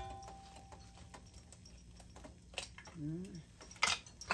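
Faint kitchen clatter: a dish clinks and rings briefly at the start and again near the end, with a couple of soft knocks between. A short hummed syllable comes about three seconds in.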